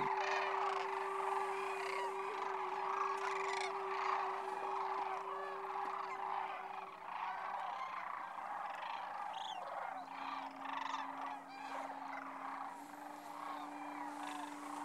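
A large flock of sandhill cranes calling at once: a dense, overlapping chorus of many calls that thins slightly in the second half.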